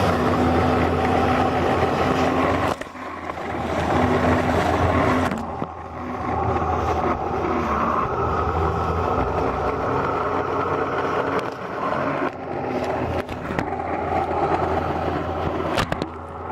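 Yamaha VX Sport jet ski engine running under way, with the rush of wind and water over it; the sound dips briefly twice in the first few seconds.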